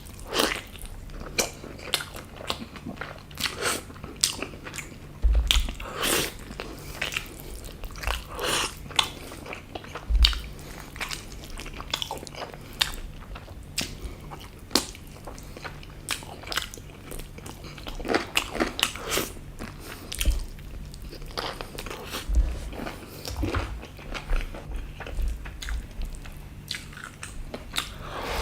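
Close-miked eating: a person biting and chewing food, with many short, irregular mouth clicks and some crunching, and a few dull low thumps.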